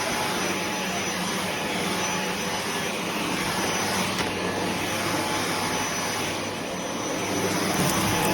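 Vacuum cleaner motor running steadily with a thin high whine over its airflow noise. It dips slightly about six seconds in and then picks up again.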